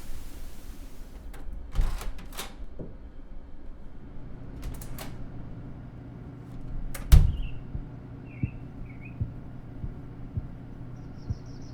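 A run of sharp clicks and knocks, the loudest a heavy thump about seven seconds in, over a low steady hum that starts about four seconds in. A few short chirps follow the thump, and a fast high ticking comes in near the end.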